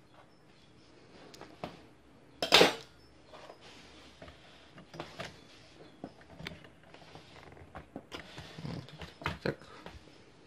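Small plastic containers and metal tweezers handled on a wooden floor: scattered light clicks and knocks, with one loud sharp clatter about two and a half seconds in.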